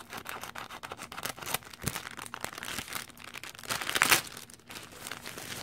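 Thin clear plastic wrapper crinkling and rustling as it is cut open with scissors and pulled apart to get the shower cap out, in irregular crackles with the loudest rustle about four seconds in.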